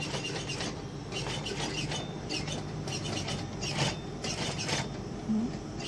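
Juki industrial sewing machine humming steadily while a shirt placket is edgestitched, with irregular rustles of the shirt fabric being guided under the presser foot.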